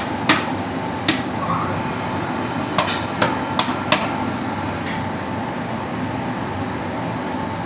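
Hammer tapping on metal, about seven sharp, irregularly spaced strikes in the first five seconds, as a sleeve is tapped onto a Cummins engine crankshaft. A steady machinery hum runs underneath.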